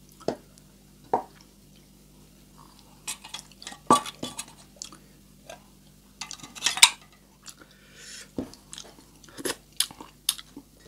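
Opened tin sardine cans clinking and knocking as they are handled and their pull-tab lids moved, in a series of sharp metallic clicks, the loudest about four and seven seconds in.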